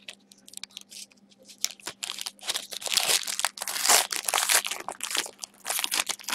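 Foil wrapper of a football card pack crinkling and crackling in the hands as the pack is worked open and the cards are pulled out. It starts with scattered crackles and is densest in the middle.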